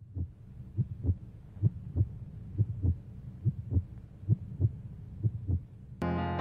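Heartbeat sound effect: a slow, steady lub-dub, a double thump about every 0.8 seconds, seven or eight times. Piano music cuts in abruptly near the end.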